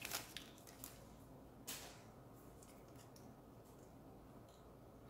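Faint crinkling of a torn-open foil Yu-Gi-Oh! booster pack as the cards are slid out of it: a few short crinkles at the start and one more just under two seconds in, then near silence.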